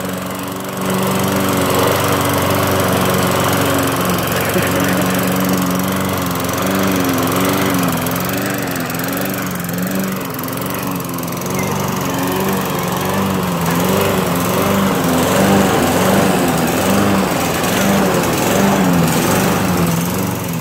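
Small gasoline walk-behind lawn mower engine running continuously while being pushed through deep snow to clear it, its pitch wavering up and down.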